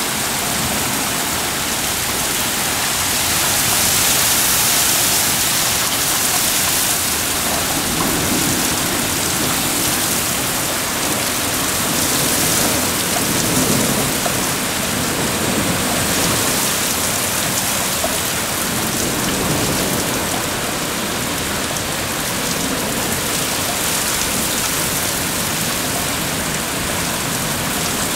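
Heavy downpour in a severe thunderstorm: a steady, loud hiss of wind-driven rain pouring onto pavement and roofs, with low thunder rumbling through the middle.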